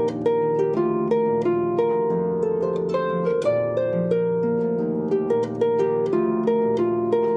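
Background music: a plucked harp-like melody, notes following one another quickly and evenly.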